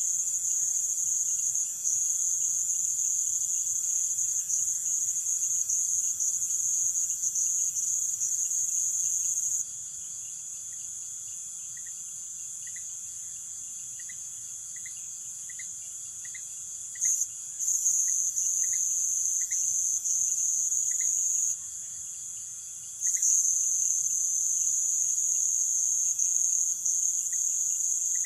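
Chorus of night-singing insects: a loud, high, continuous trill that stops about a third of the way in, comes back for a few seconds, stops briefly again and then resumes. Under it runs a fainter steady high note, and short chirps repeat about one and a half times a second while the trill is off.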